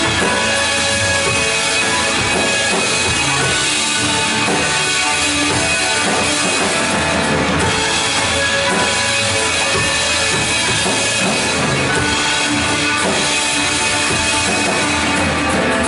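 Live worship band playing an instrumental passage with a full drum kit, at a steady level.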